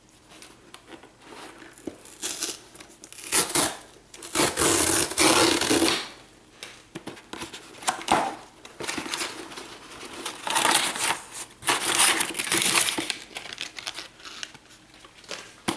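Cardboard mailing box being handled and torn open along its taped flap: rough bursts of scraping, crinkling and tearing, loudest about four to six seconds in and again around eleven to thirteen seconds.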